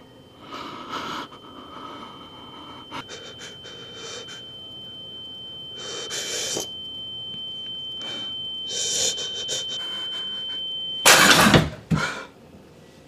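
A man breathing in and out several times, over a steady high-pitched ringing tone. About eleven seconds in the tone stops and a loud, sudden noise sounds.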